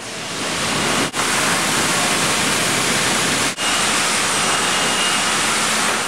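Sawmill log-breakdown line saws cutting through a log: a loud, steady rush of machine and cutting noise, cut off for an instant twice, about a second in and again halfway through.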